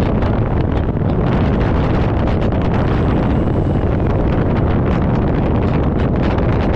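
Loud, steady wind rush from airflow buffeting the onboard camera's microphone on a Volantex Ranger 1600 RC plane in flight.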